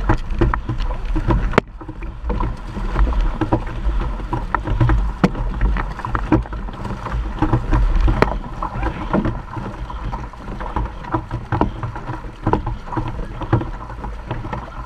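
Outrigger canoe under race paddling: paddle blades striking and pulling through the water with irregular splashes, and water rushing along the hull over a steady low rumble. The level drops suddenly about one and a half seconds in.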